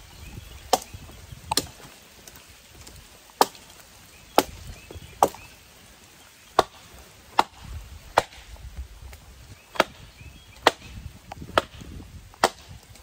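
Hults Bruk 24-inch bushcraft axe, a 1¾-pound Swedish-steel head on a wooden handle, chopping into a felled sapling: about a dozen sharp chops, roughly one a second.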